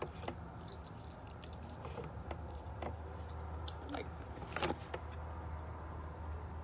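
Eating sounds at close range: soft clicks and crackles of fingers picking food apart and chewing, with a sharper click about four and a half seconds in, over a steady low hum.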